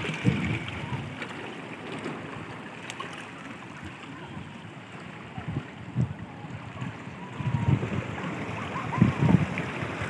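Sea waves washing over a rocky shore, a steady rush and trickle of water, with louder surges in the last couple of seconds.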